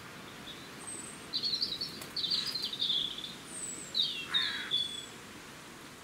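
Songbird chirping and twittering in short high phrases, in three groups between about one and five seconds in, with a few thin, very high single notes around them.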